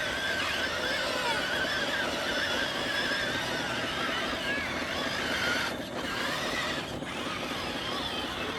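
Small electric motors of a radio-controlled construction toy whining, their pitch wavering up and down as they work, with a brief dip twice near the end.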